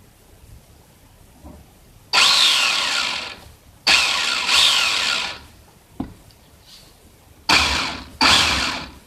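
HPI E10 RC touring car's electric motor and shaft-drive 4WD drivetrain spinning up in five short throttle bursts, each with a gliding whine that fades as it spins down. The drivetrain is loud and growly, which the owner puts down to the bathtub chassis flexing and pressing on the driveshaft and differentials, causing drag.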